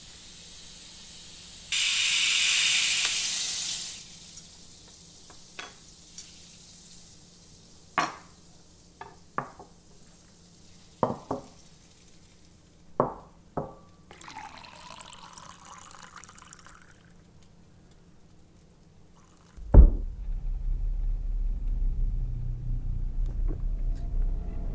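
Pressure cooker's weight valve venting steam: a loud hiss lasting a few seconds, strongest over the last two. Then steel cups and a glass clink against each other, and water pours. Near the end comes a sudden loud thud, followed by a steady low rumble.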